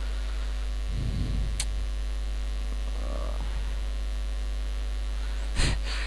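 Steady electrical mains hum in the recording chain, a constant low buzz. A soft low rumble comes about a second in, then a faint click, and a short noise burst near the end.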